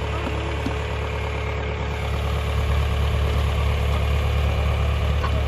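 A vehicle engine running steadily, growing slightly louder about two seconds in.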